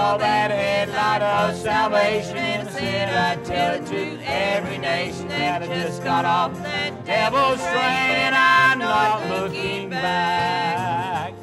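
A man singing a gospel song, his voice wavering with vibrato, over steady instrumental accompaniment.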